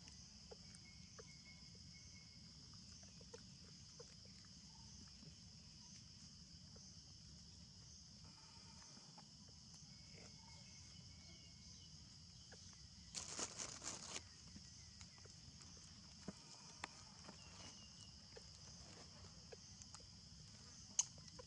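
Faint steady high-pitched insect drone from the forest, with a brief burst of rapid rustling a little over halfway through and a few scattered small clicks.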